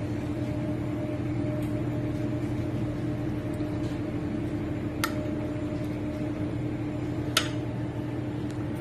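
Steady machine hum of kitchen equipment, a low drone with a higher steady tone over it. Two sharp clicks, about five seconds in and again near the end, as a metal spatula knocks against the ceramic baking dish and plate.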